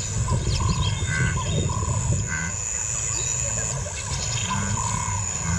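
Bush ambience: short bird calls repeating every half second or so over a steady low rumble.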